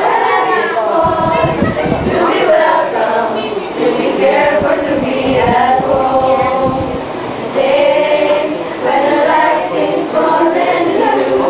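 A mixed group of teenage students singing a song together as a small choir.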